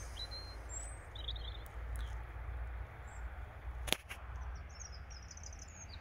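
Small birds chirping in short, high twittering phrases, several times, over a steady low rumble, with one sharp click about four seconds in.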